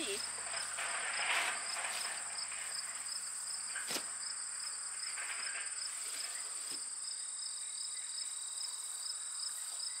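Crickets and other field insects trilling in a steady chorus: a constant high trill with a pulsing trill just below it. A single sharp click about four seconds in.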